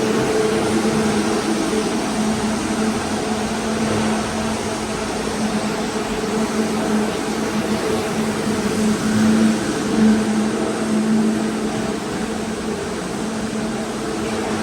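Steady machine hum with a rushing, air-like noise, swelling a little around two-thirds of the way through.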